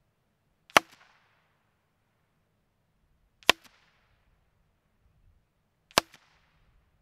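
Three sharp cracks about two and a half seconds apart, each with a short fading tail: three rounds from a suppressed Savage Mark II .22 LR rifle firing CCI standard-velocity ammunition, picked up at the target end as the bullets strike the paper target on its cardboard backer.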